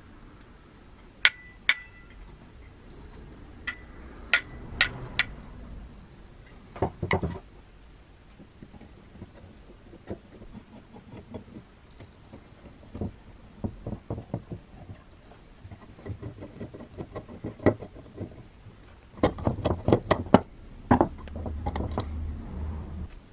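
Metal parts of a vintage Woden Quiksaw saw attachment clinking and knocking as they are handled on a wooden bench: scattered sharp taps, a quick run of clinks near the end, then a low rubbing.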